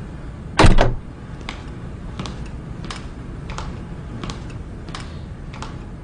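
A single heavy thump just under a second in, then footsteps at an even walking pace on a hard floor, about seven steps, one every two-thirds of a second.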